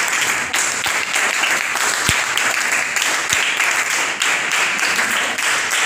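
A roomful of schoolgirls applauding: dense, steady clapping.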